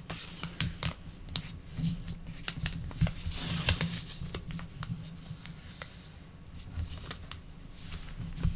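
A sheet of origami paper being folded and creased by hand: small crinkles and taps of the paper, with a rubbing hiss about three to four seconds in as fingers slide along the fold to press the crease. A low steady hum runs underneath.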